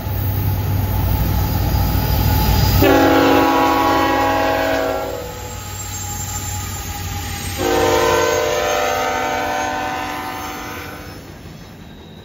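Diesel freight locomotives approaching and passing with a deep engine rumble, then sounding their air horn twice. The blasts come about three seconds in and about eight seconds in, each a long chord of several notes, the second a little longer. After the horn, the freight cars roll by more quietly.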